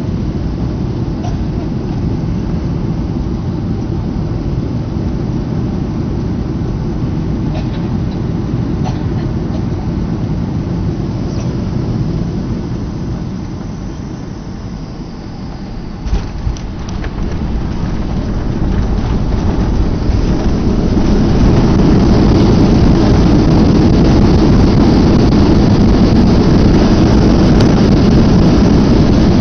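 Inside the cabin of a Boeing 737 airliner landing: steady jet engine and air noise on final approach, a short thump of touchdown about halfway through, then a rising, loud steady roar as the engines go into reverse thrust and the jet slows on the runway with its spoilers up.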